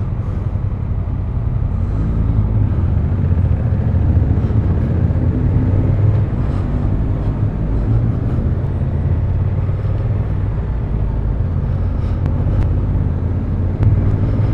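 Motorcycle engine running under way, a steady low drone with its pitch shifting slightly with the throttle, under wind and road noise.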